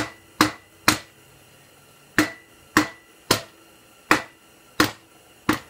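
A hammer tapping the front axle through the fork and wheel hub of a Honda CR250 dirt bike to drive it into place. About nine sharp metallic strikes at uneven spacing, each with a brief ring.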